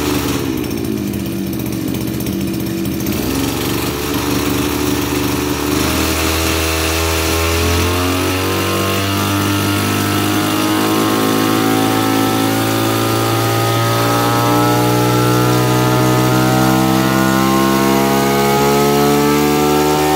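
Maruyama BIG-M KC26 26cc two-stroke brush cutter engine running with the blade spinning free: it is blipped up and down a couple of times, then held at high revs, the pitch creeping slowly higher.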